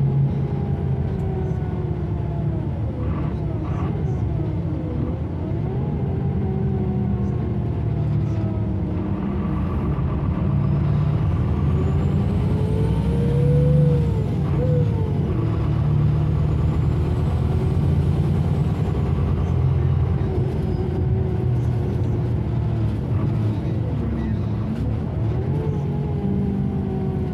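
Engine and drivetrain of a Karosa C955 Récréo intercity bus heard from inside the passenger cabin as the bus drives, its pitch rising and falling repeatedly as the bus speeds up and slows, over a steady low rumble. A faint high whine rises and falls twice near the middle.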